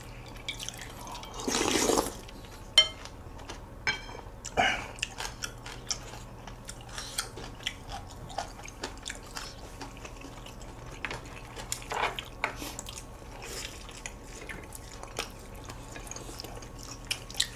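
Eating sounds of ginseng chicken soup: spoons clinking against the bowls, broth being slurped and chewing, with many small clicks and a few short louder slurps.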